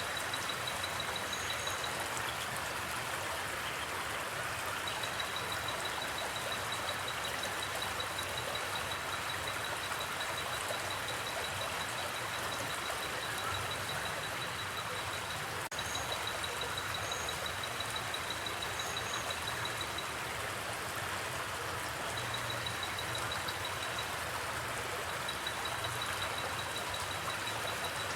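A river stream flowing steadily, with a cricket trilling over it in long runs of rapid high pulses that stop and start. Short high double chirps come now and then.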